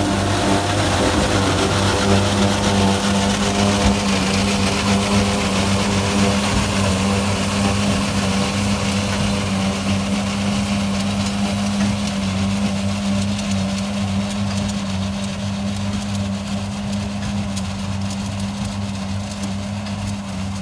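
Tractor engine and large square baler working in straw: a steady, loud mechanical drone with a low hum that slowly fades as the rig pulls away.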